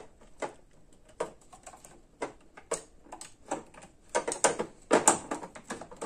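Scattered light clicks and knocks as a utility knife is worked along a magnetic tool-holder bar in a metal tool-cart drawer. The clicks come quicker about four seconds in.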